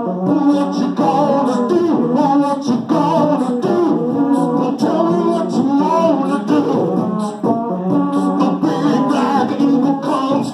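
Live rock song: a man singing loudly into a microphone over amplified electric guitar.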